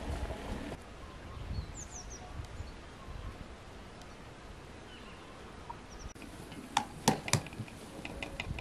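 Quiet outdoor ambience with a few faint bird chirps, then glass jars clinking: three sharp clinks about seven seconds in, followed by light rapid ticking as a jar is handled and wiped with a cloth.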